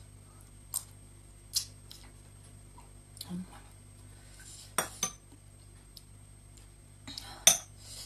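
A metal spoon clinking against a glass bowl of soup: about five short sharp clinks, two in quick succession midway and the loudest near the end.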